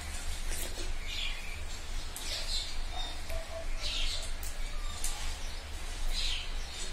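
Wet mouth sounds of eating rice by hand: a series of short lip smacks and chewing noises about a second apart, with a few sharp clicks, over a steady low hum.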